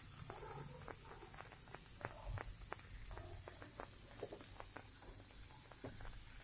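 Surmai (kingfish) steaks shallow-frying in a little oil in a frying pan: faint, irregular crackling and small pops of the hot oil.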